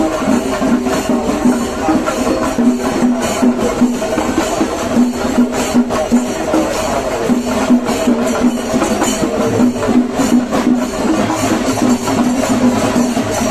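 Singari melam: a troupe of chenda drums playing a fast, unbroken rhythm.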